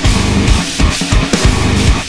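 Loud heavy rock backing music, distorted guitars over a driving drum beat.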